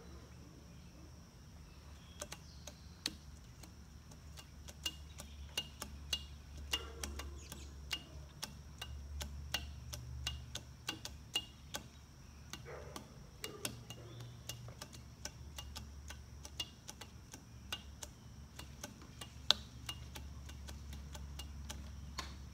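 Irregular sharp clicks and ticks, several a second and loudest about nineteen seconds in, over a faint, evenly repeated chirping of insects.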